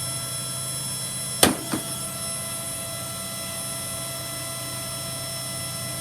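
Shark Rotator vacuum cleaner's motor running steadily with a whine, struggling after being wrecked. About a second and a half in, a sharp knock, followed by a smaller one.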